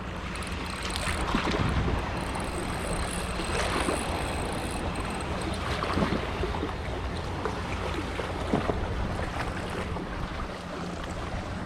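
Boat engine running steadily with a low hum, water rushing past and wind noise, with a few scattered knocks.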